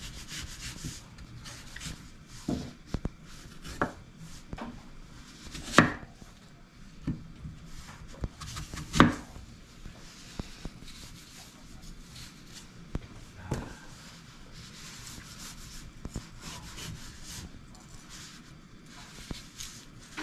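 Kitchen knife slicing and coring a peeled apple on a wooden cutting board: soft scraping of the blade through the fruit, with a few sharp knocks, the loudest two about six and nine seconds in.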